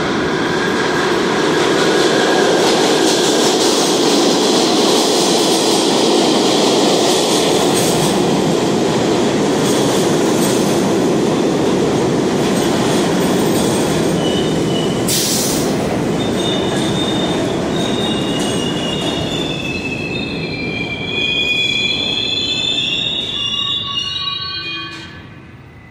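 New York City Subway B train pulling into an underground station: a loud, steady rumble of wheels on rails. As it brakes, high squealing tones set in, some falling in pitch. The sound dies away as the train stops near the end.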